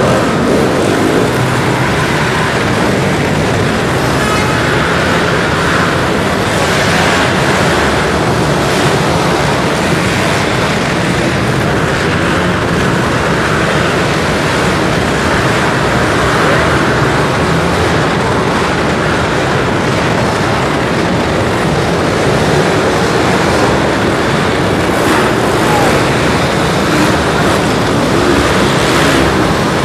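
Several pit bike engines racing, revving up and down as the riders take the jumps and turns, their engine notes overlapping with no break.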